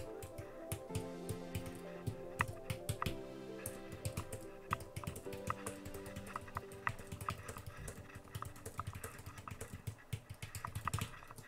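Typing on a computer keyboard: quick, irregular key clicks, over quiet background music with held notes.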